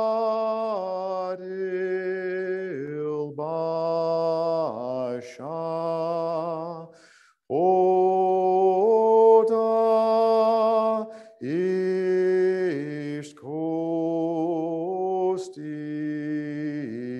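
A man sings a Chickasaw hymn from the Choctaw hymnal alone, with no accompaniment. He holds long notes with a slight waver, and his phrases are broken by brief pauses for breath.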